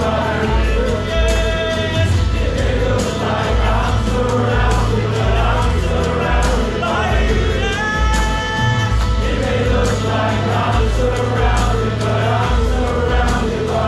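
Live worship music: a band with a steady bass pulse and cymbals, and a group of voices singing together.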